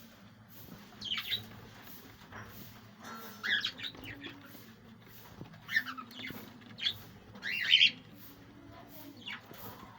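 Budgerigars calling: about six short, scratchy squawks and chirps spaced a second or two apart, the loudest a little past the middle.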